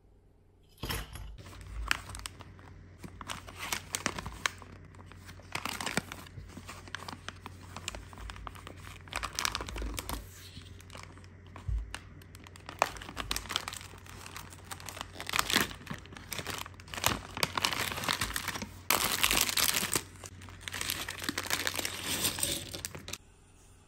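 Plastic packaging crinkling and rustling in the hands in irregular bursts as a building-block kit's printed bag is torn open. A clear plastic bag of loose plastic bricks is also handled.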